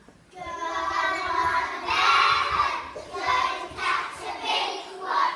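A group of young children singing together in unison, starting about a third of a second in, with a short break about halfway through.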